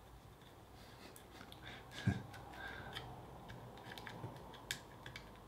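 Faint, scattered small clicks and scrapes of a plastic car key fob being handled, with one dull knock about two seconds in.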